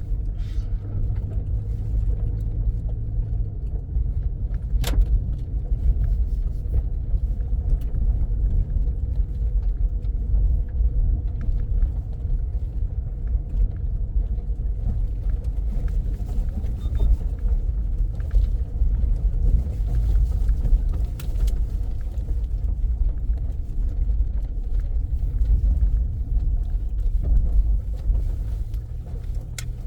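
A car driving, with a steady low rumble from the engine and road and occasional knocks and rattles.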